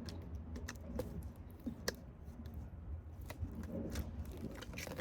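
Hard plastic shoe-box panels being handled and folded, with scattered clicks and taps as the folded corner flaps are pressed into the grooves. A low, steady hum runs underneath.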